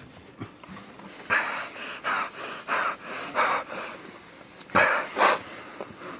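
Quick, forceful breaths in and out through the mouth from a person whose mouth is burning from a just-eaten Carolina Reaper pepper: a run of about five quick breaths, then two louder ones near the end.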